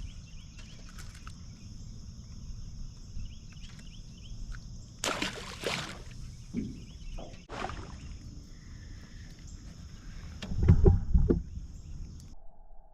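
Small fishing boat sitting on the water: low rumble of water and wind against the hull, with a steady high-pitched hiss over it. There is a brief splashy burst about five seconds in and a few louder low knocks near the end.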